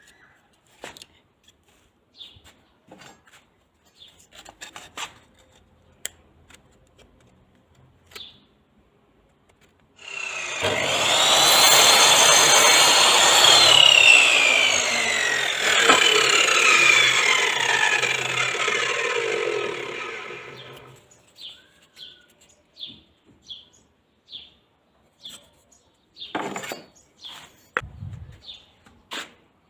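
A TOTAL 10-inch, 1800 W sliding mitre saw cutting through wood for about ten seconds, starting about ten seconds in. Its whine falls in pitch during the cut. Light clicks and handling come before and after the cut.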